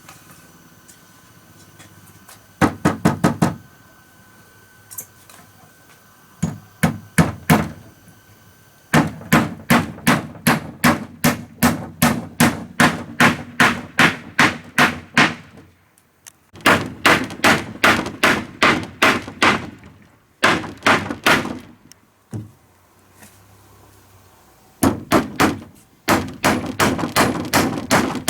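Rapid runs of hammer blows on wood, about three to four strikes a second, in bursts of several seconds with short pauses between.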